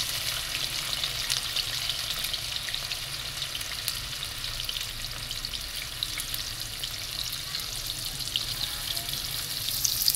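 Sliced bitter gourd frying in hot oil in a karahi: a steady sizzle with fine crackles as more slices are dropped in by hand.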